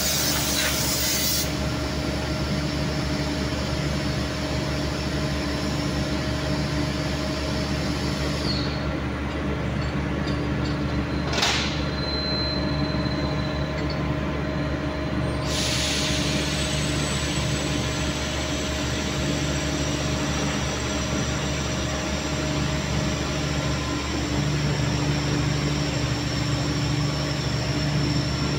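Steady drone of factory machinery around a CNC lathe, with constant hum tones under a layer of hiss. A compressed-air blow gun hisses loudly for the first second or so, then stops.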